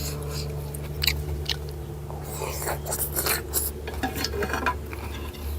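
A person eating noodle soup close to the microphone: chewing and crunching, with scattered short clicks of utensils and dishes. A steady low hum runs underneath.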